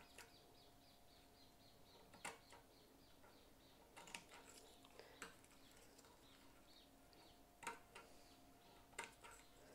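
Faint snips of scissors cutting through fly netting, five or so short clicks at irregular intervals.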